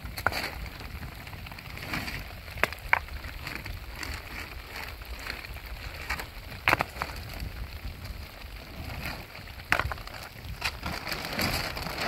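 Plastic sheeting rustling and crinkling as it is handled and pulled, with about five sharp knocks of stones set down at its edge, two of them in quick succession near the three-second mark.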